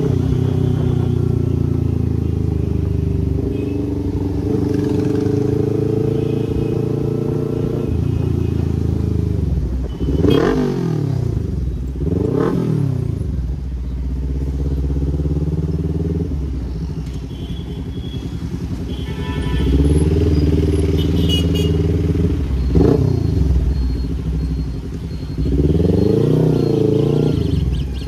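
Kawasaki Ninja 300 parallel-twin engine running through a loud aftermarket exhaust. It holds a steady engine note, with several quick rises and falls in revs in the middle and near the end.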